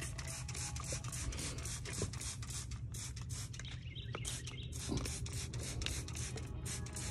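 Faint rubbing and scratching, many short scrapes close to the microphone, over a low steady rumble.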